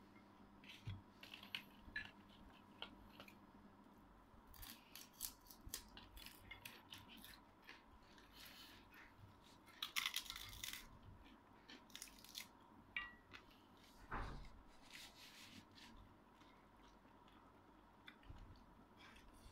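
Faint eating sounds: scattered crackles, small crunches and clicks as dried fish and rice are eaten by hand and chewed, with a denser crackling burst about halfway through and a soft knock shortly after.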